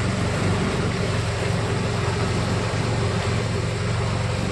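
Small boat's motor running steadily, a low even hum, with the hiss of water moving past the hull.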